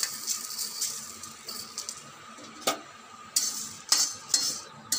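Fenugreek seeds tipped into a hot, dry kadai rattle onto the pan, then a spatula scrapes and knocks against the pan in a few sharp strokes as the whole spices are dry-roasted.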